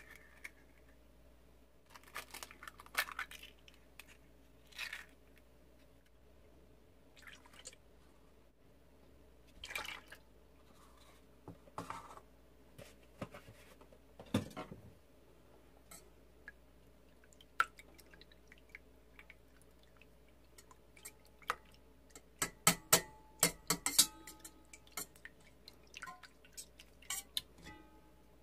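Eggs tapped and cracked on the rim of a stainless steel mixing bowl and dropped in, with scattered knocks and clicks. Near the end, a wire whisk clatters quickly against the bowl as the eggs and milk are beaten.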